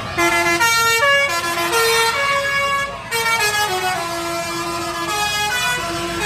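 Tour bus's telolet 'basuri' musical horn playing a melody of held notes that step up and down, each lasting about half a second.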